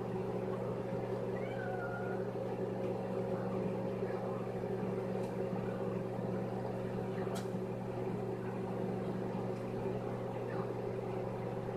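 Microwave oven running with a steady hum, heating an egg, with a few faint ticks.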